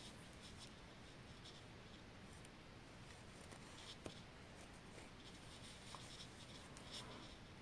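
Near silence, with faint soft rustles and a few tiny ticks of yarn being drawn through knitted wool as a seam is sewn by hand.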